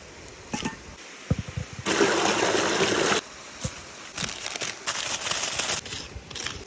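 Aluminium foil crinkling in short bursts as a potato is wrapped, with a louder rustle about two seconds in and a few sharp knocks before it, over the steady rush of a small waterfall.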